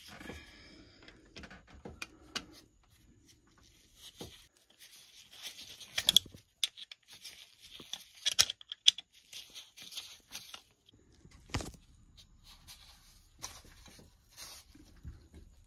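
Flat-blade screwdriver turning the screw of a worm-drive hose clamp on a rubber hose, with intermittent metallic scraping and sharp clicks, loudest around the middle; near the end the loosened hose is worked by hand at its fitting.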